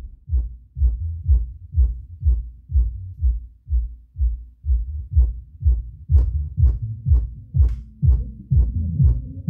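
Infinity BU-2 10-inch powered subwoofer playing a bass-heavy beat: deep kick thumps about twice a second, with a pitched bass line coming in higher up near the end.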